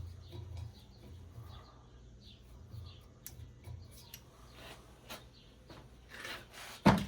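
Quiet background with a low hum and faint, scattered bird chirps, a light click about halfway, and one sharp knock near the end.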